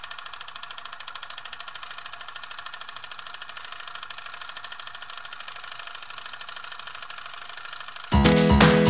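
A fast, even mechanical rattle like a small motor, with many ticks a second and little bass. Loud music starts near the end.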